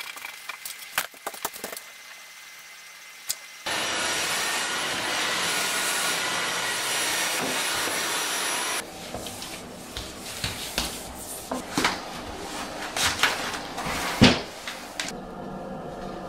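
Light cloth rubbing on a tabletop, then a cordless stick vacuum cleaner switches on suddenly a few seconds in and runs steadily with a high whine, later dropping to a quieter running sound with scattered knocks and bumps.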